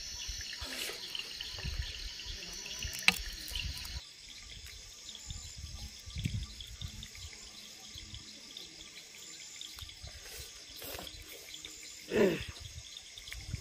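Close-up wet chewing and lip-smacking of people eating rice and fried fish with their hands, with a sharp click about three seconds in. A steady high chirring of insects runs underneath, and a short murmur of voice comes near the end.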